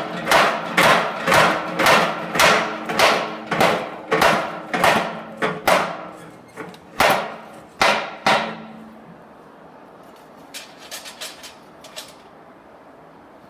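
Power hammer blows on a hot steel leaf blank, a steady run of about two strikes a second, each with a short metallic ring. The blows slow to two last strikes about halfway through and stop. A few faint clicks follow near the end.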